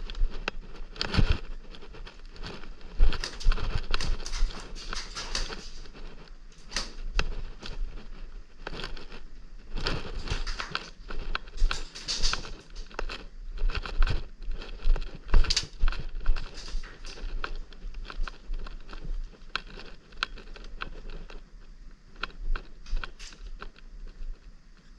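Sounds of play on an indoor airsoft field: a dense, irregular run of clicks, taps and rustles, with louder knocks about one, three and fifteen seconds in.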